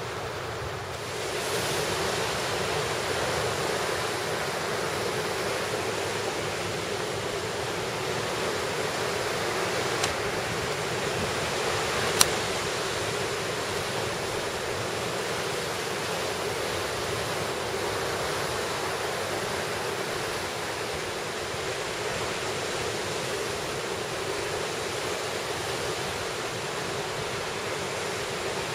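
Steady wash of sea surf and wind. About ten seconds in there is a sharp click, and a louder one about two seconds later.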